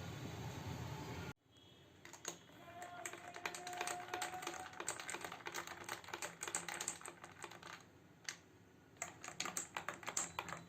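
Background music cuts off about a second in, then a spoon clinks against ice cubes in a glass as honey is stirred into cucumber juice: a run of quick, irregular light clicks, pausing briefly near the end before starting again.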